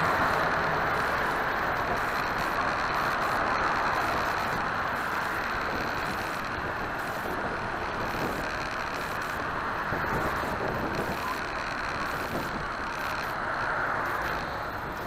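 Steady road noise of a moving car heard from inside the cabin: tyre roar, engine and wind, with a faint high steady whine. It eases slightly as the car slows through a curve.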